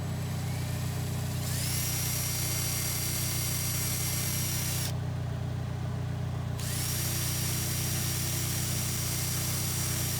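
Power drill running twice, about three seconds each, its whine rising as it spins up, boring holes into a plastic front lip for mounting screws. A steady low hum runs underneath.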